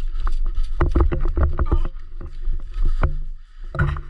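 An airsoft gun fires a rapid string of shots, about eight a second, for roughly a second, then single shots a couple of times later. Low rumble of wind and gear handling on the body-worn microphone runs underneath.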